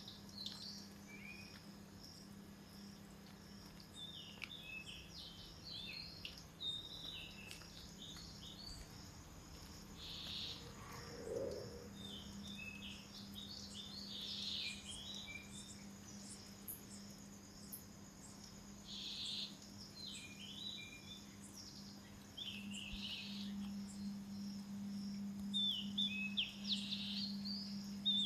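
Bursts of short, high chirps every second or two over a steady high insect buzz and a low hum; the hum grows louder near the end.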